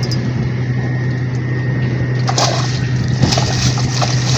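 A boat's engine running with a steady low hum, with water splashing and sloshing that sets in about halfway through.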